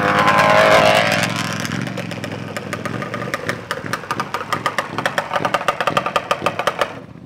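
Big-bore Yamaha Banshee two-stroke ATV engine running loud, then dropping into a fast, regular popping beat. The sound cuts off abruptly near the end.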